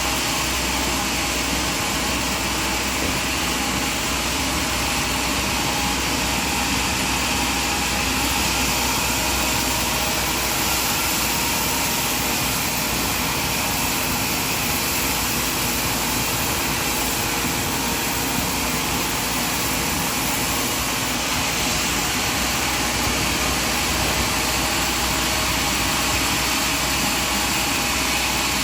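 Sawmill machinery running steadily: an even, unbroken mechanical noise with no separate cuts or knocks standing out.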